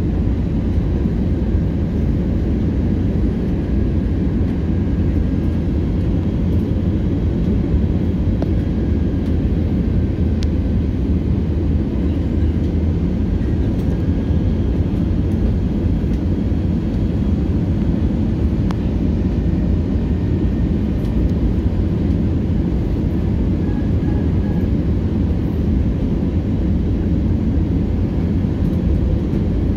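Steady low rumble inside an airliner cabin, engine and airflow noise heard from a passenger seat as the plane descends on approach to landing, with a faint steady whine above it.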